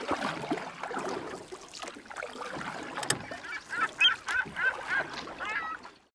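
Birds calling, a flock's worth of overlapping calls, with a run of short repeated calls, three or four a second, in the second half. There is a sharp click about three seconds in, and the sound fades out just before the end.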